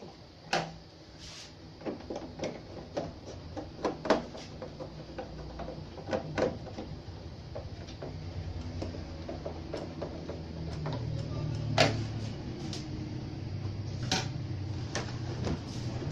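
Scattered clicks and knocks of a screwdriver and hands working on the plastic back cover of a CRT television as its screws are taken out, the sharpest knock about twelve seconds in. A low steady hum comes up in the second half.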